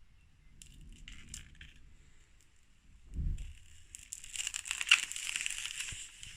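Plastic-film expanding-foam packaging crinkling and rustling as it is handled and pulled from the box, with a dull thump about three seconds in and a long burst of dense crinkling in the second half.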